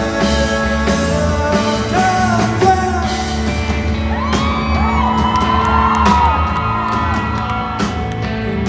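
Live rock band music with a male singer drawing out long, wavering held notes over the band, loudest in the middle of the stretch.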